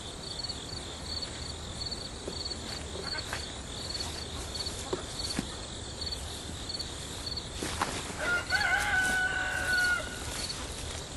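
A rooster crowing once, a long held call beginning about three seconds before the end, over insects chirping steadily in a rhythm of about two chirps a second.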